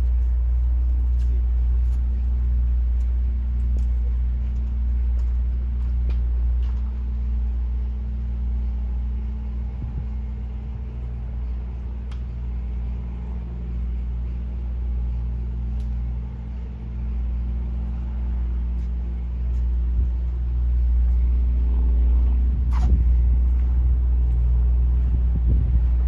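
A steady low mechanical rumble with a few faint steady hum tones, like a motor or engine running.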